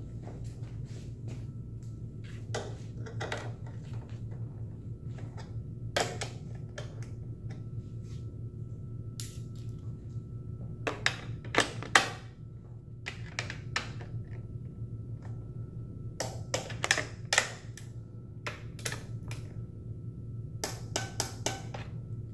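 Irregular clicks and light clatter of hands handling wiring, connectors and plastic parts in a motorcycle's tail section, in short clusters with the sharpest click about twelve seconds in, over a steady low hum.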